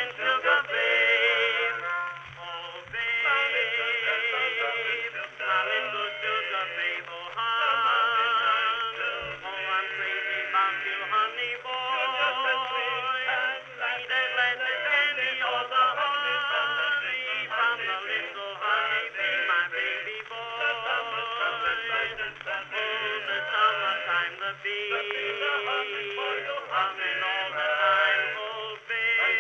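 Background music: an old-time popular song recording plays on, its melody wavering with vibrato.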